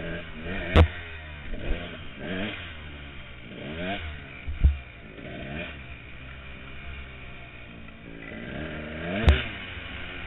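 Dirt bike engine heard from on the bike, revved up repeatedly with the throttle blipped over rough ground, its pitch rising with each burst. Sharp knocks, from the bike jolting over bumps, come about a second in and near the end, with a low thump midway.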